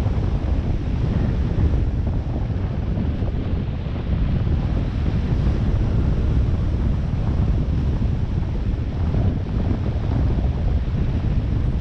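Steady rush of airflow buffeting the camera microphone in gliding flight, a dense low rumble with no engine.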